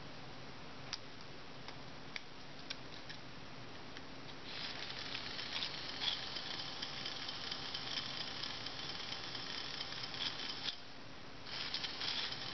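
Small battery-powered motor and plastic gearbox of a TrackMaster toy engine whirring, its wheels spinning free in the hand, after a few light plastic clicks. It runs for about six seconds, stops, then runs again briefly near the end.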